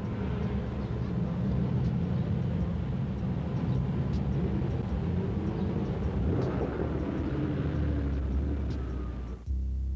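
Lamborghini engines running as a procession of cars rolls slowly past. Near the end the engine sound cuts off suddenly and music begins.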